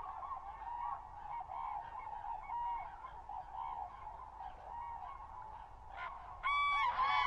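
A flock of common cranes calling: many overlapping bugling calls in chorus. About six and a half seconds in, louder calls begin.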